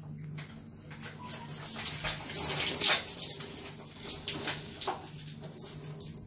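A boy gulping and sucking water fast from a plastic bottle: irregular slurping, gurgling and splashing, loudest between about two and three seconds in.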